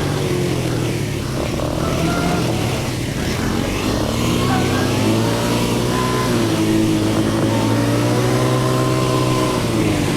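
ATV engine running while being ridden, its pitch rising and falling with the throttle and dipping briefly several times.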